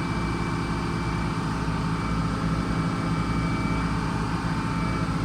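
The bus engine that drives the sawmill, running at a steady speed with an even hum.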